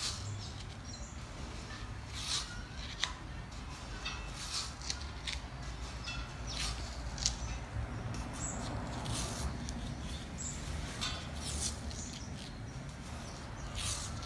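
Velox adhesive rim tape being pressed and stretched by hand into the bed of a bicycle rim: irregular short scrapes, rubs and clicks of fingers on tape and rim, over a faint low hum.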